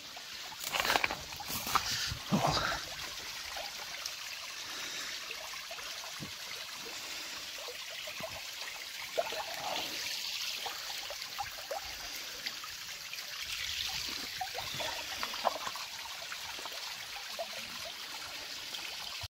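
Small spring-fed brook trickling steadily over stone ledges, with a few louder knocks in the first three seconds.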